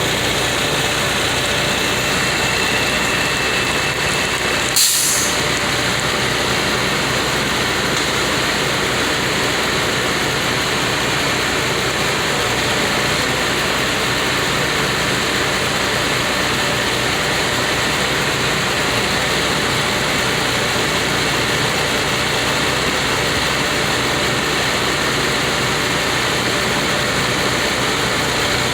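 Heavy engine of a truck-mounted crane running steadily under load while it lifts tree sections. A brief hiss about five seconds in.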